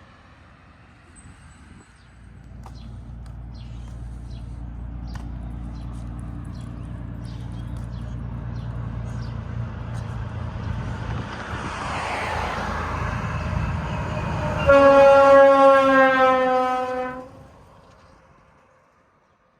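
Locomotive approaching, its engine rumble building for several seconds. It then gives one long horn blast of about two and a half seconds, the pitch sagging slightly as it passes, before the horn cuts off and the train noise fades.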